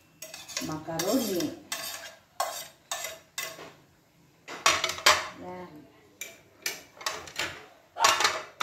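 Metal spoon scraping and tapping on a plate as macaroni is pushed off into a metal pan of soup, then a spoon stirring and knocking against the pan, in quick repeated strokes with a short pause between the two.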